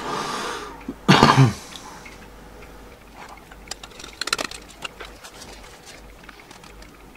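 A man makes a short, low cough-like throat sound about a second in, just after a breath. A few faint clicks follow, then quiet room tone.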